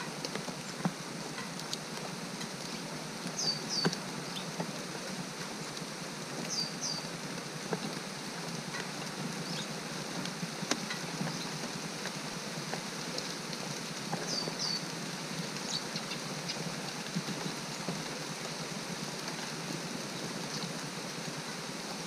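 Steady summer rain falling, with drops ticking on nearby surfaces. A small bird at the feeder gives a pair of short, high, falling chirps three times.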